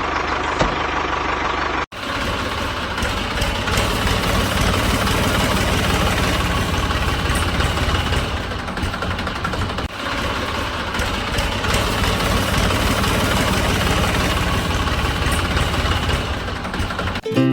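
The small motor of a homemade mini tractor running steadily with a rapid knocking pulse. It breaks off abruptly about two seconds in and starts again at once.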